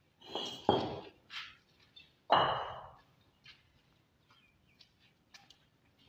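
Fired clay bricks clinking and knocking against each other as they are picked up from a pile and stacked: two loud clacks with a brief ring about a second and a half apart, and lighter taps around them.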